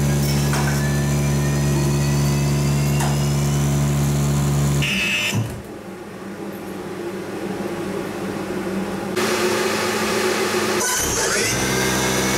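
Fanuc AC spindle motor on a test rig, driven by the spindle servo unit under test: a steady electric hum with a thin whine that rises in pitch as the motor speeds up. About five seconds in the hum cuts out and the motor runs on more quietly, then the hum and a rising whine return near the end.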